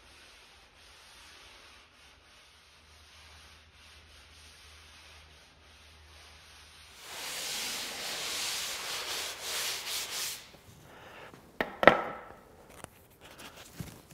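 Dry rubbing on the sanded cedar hull of a small dinghy: faint at first, then louder and uneven for about three seconds from about seven seconds in. A few sharp clicks follow about twelve seconds in.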